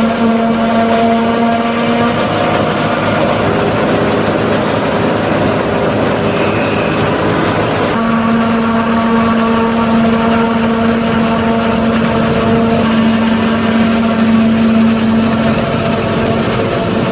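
New Holland FX48 self-propelled forage harvester chopping standing corn under load. A steady droning machine tone sits over a loud, dense rushing noise. The drone drops away for a few seconds and comes back strongly about halfway through, when a tractor and forage wagon running alongside the harvester are added to the mix.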